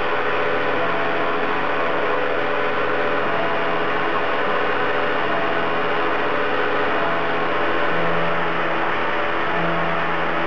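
CNC knee mill machining aluminium plate with a small end mill under flood coolant: the spindle whirs and the cutter chatters in a steady, loud run with several held ringing tones.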